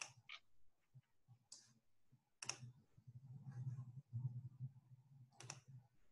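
About five faint, sharp clicks at a computer, unevenly spaced, as a screen share and slideshow are set up, over a faint low hum.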